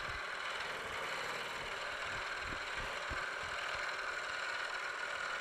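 A milling machine running steadily, its motor and spindle giving a constant even hum with a high whine. A couple of faint low knocks come around the middle.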